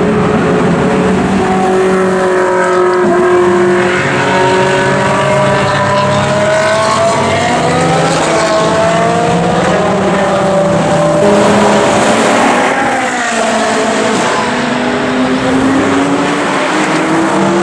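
Several Ferrari engines running hard on a race circuit. Their overlapping notes rise and fall as the cars accelerate and pass, and one engine note climbs near the end.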